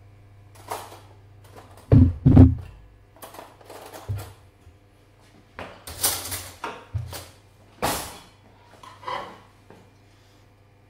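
Saucepan and utensils being handled: two heavy knocks about two seconds in, then scattered clatters and scrapes, over a steady low hum.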